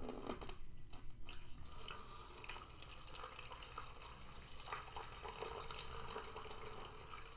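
Water being poured from a small pitcher into the base of an evaporative humidifier, a steady pouring trickle, with a few light knocks in the first second or so.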